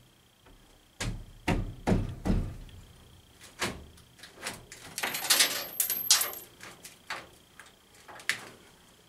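A loose brick fireplace facing being pushed and worked by hand: a few dull thumps and knocks, then a gritty scrape of brick and mortar shifting about halfway through, with scattered sharp clicks.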